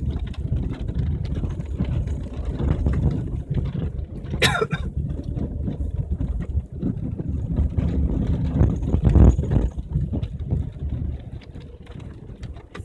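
Car cabin noise while driving slowly on a wet, muddy dirt track: engine and tyre rumble that rises and falls, with mud and water splashing under the car. A brief high swish about four and a half seconds in, and a louder surge of rumble around nine seconds.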